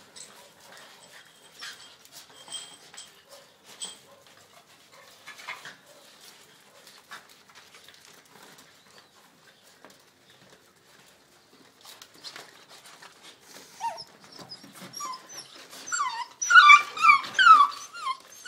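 Puppies play-fighting over a rag on a tile floor. At first there is only faint scuffling and scattered clicks, then about two-thirds of the way through comes a quick run of short, high-pitched whining cries, loudest near the end.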